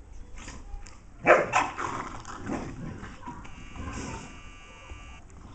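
Dogue de Bordeaux and golden retriever play-fighting. About a second in, a sudden loud burst of barking and growling lasts about a second and a half. A steadier high-pitched sound follows in the second half.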